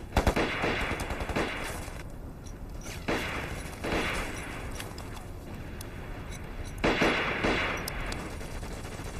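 Battle gunfire: a rapid burst of shots right at the start, then further volleys of rifle and machine-gun fire about three, four and seven seconds in, over a continuous noisy din.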